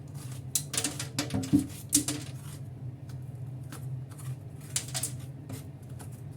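Bitter melon pith being scraped out of the halved gourd: a quick series of short rasping scrapes over the first couple of seconds, then a few fainter ones, over a steady low hum.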